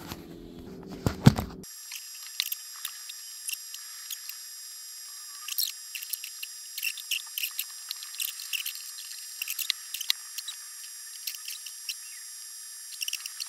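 Camera being handled with a sharp knock, then light clicks and rustling from parts and cardboard being handled, sounding thin with no low end, over a faint steady high-pitched whine.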